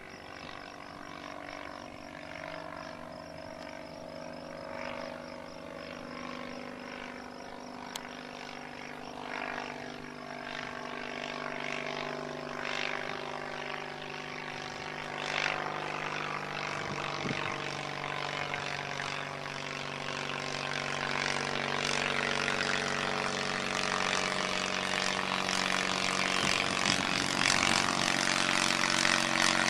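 UltraVair 35 hp twin-cylinder four-stroke engine, built from two cylinders of a Corvair flat-six, driving the propeller of an ultralight in flight. A steady engine-and-propeller drone that grows louder as the plane comes closer.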